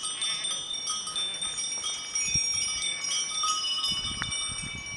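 Bells worn by a small herd of goats ringing as the goats move along, many overlapping high, clear tones that come and go.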